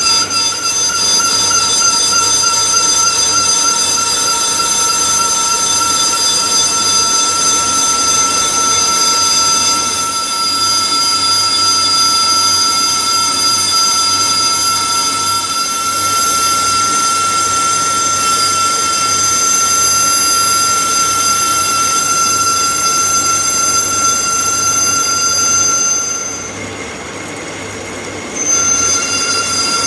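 Metal lathe cutting a spinning metal sleeve, the tool bit squealing in one steady high-pitched tone over the machine's running noise. The squeal stops for about two seconds near the end, then starts again.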